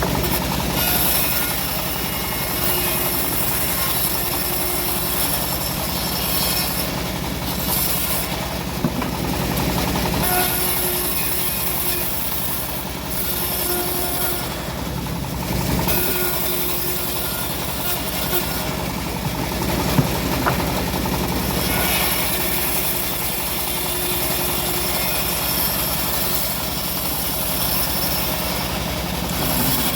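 Home-built bandsaw sawmill running steadily as it cuts old teak, its engine humming evenly under a hiss that swells and fades several times. A single sharp knock sounds about two-thirds of the way through.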